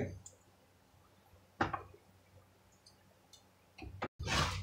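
Quiet kitchen with a single sharp click about a second and a half in, then a short clatter of kitchen things near the end.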